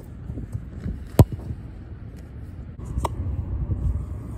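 A soccer ball striking something: one sharp, loud hit about a second in and a weaker one about three seconds in, over a low steady rumble.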